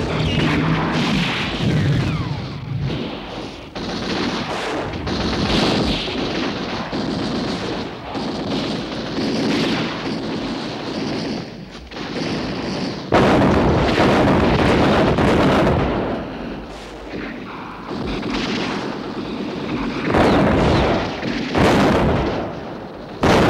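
Battle sounds of gunfire and artillery shell bursts, a dense run of shots and explosions. A sudden loud blast about 13 seconds in, and another near the end.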